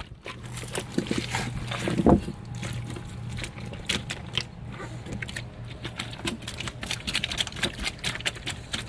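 Bare feet treading whole grapes in a plastic tub: irregular wet squishing with many small sharp pops as the berries burst underfoot. A brief louder sound about two seconds in.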